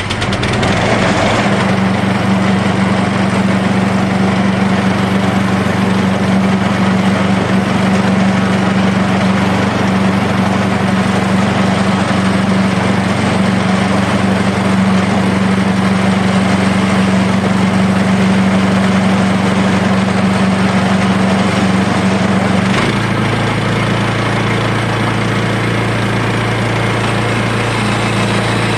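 Small petrol engine of a band sawmill, just started and running steadily. Its note shifts about a second in and drops lower about 23 seconds in.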